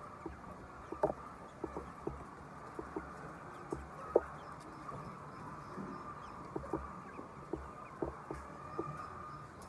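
Flock of chickens: a steady hum of many birds with scattered short, sharp sounds coming irregularly, the loudest a little after four seconds.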